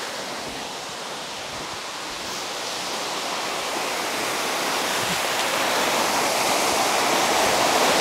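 Small waterfall splashing into a rock pool: a steady rush of falling water that grows gradually louder.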